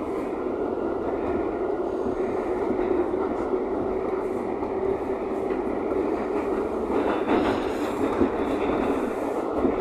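Subway train running, heard from inside the car: a steady rumble and hum of wheels and motors. Wheels clatter a few times about seven to eight seconds in.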